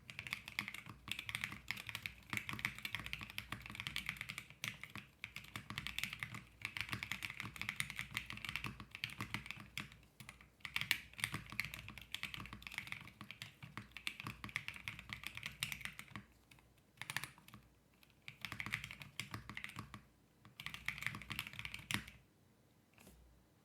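Typing on a Bakeneko65 custom mechanical keyboard with stock Akko CS Crystal switches, FR4 half plate, gummy O-ring mount and MT3 keycaps: a fast, clacky run of keystrokes. After about sixteen seconds it breaks into three short bursts, and it stops a little before the end.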